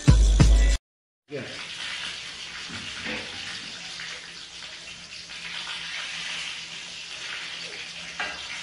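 Loud, bass-heavy music that cuts off suddenly within the first second. After a brief silence, a steady hiss of background noise with faint voices in it.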